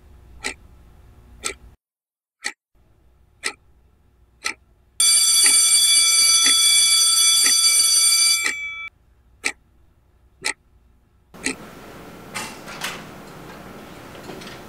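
A clock ticking once a second, then a loud school bell ringing steadily for about three and a half seconds while the ticking goes on underneath. Near the end the ticking gives way to a steady hallway hiss with a couple of soft knocks.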